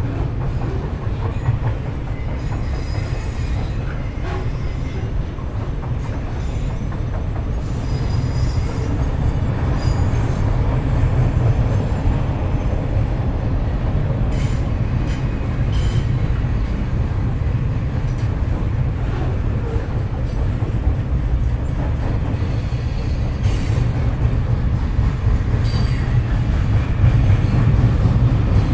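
Freight train rolling past: a steady low rumble of the railcars, with brief high-pitched wheel squeals several times.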